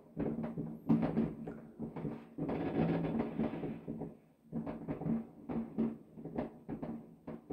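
New Year's fireworks going off: a fast, irregular string of booms and bangs, with a longer rushing crackle about two and a half seconds in.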